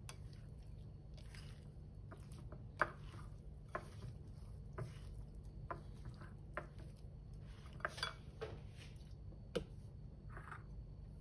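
Chopsticks stirring sliced chicken coated in flour, cornstarch and soy sauce in a china bowl: soft wet mixing with irregular light clicks and taps of the sticks against the bowl, over a low steady hum.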